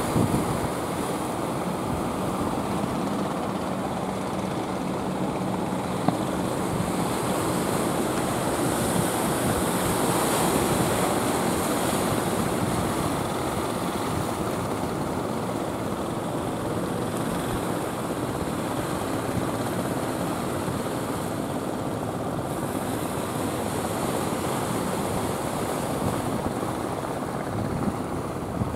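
Motor fishing boat's engine running steadily as it heads through choppy water, under a continuous wash of surf and wind.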